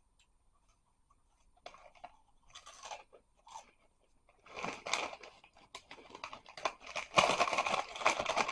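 Mouth crunching and chewing crispy Andy Capp's barbecue fries: a few quiet crunches at first, then steady, louder crunching from about halfway in.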